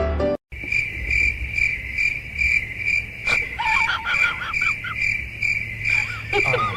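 Crickets chirping steadily, about two chirps a second. Short wavering, warbling calls sound over them a few seconds in and again near the end.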